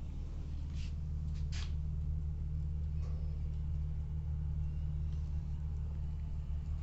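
Mahindra CL 500 MDI jeep's diesel engine idling, a steady, low, even note.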